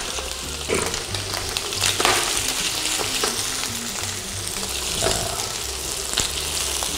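Raw shell-on prawns sizzling in hot oil in a stainless steel frying pan, a steady hiss, with a few clicks and scrapes of a utensil against the pan as they are stirred.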